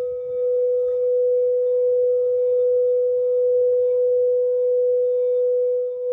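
Steady, sustained pure tone at about 440 Hz with faint higher overtones: a singing-bowl-like 440 Hz meditation tone held without a break.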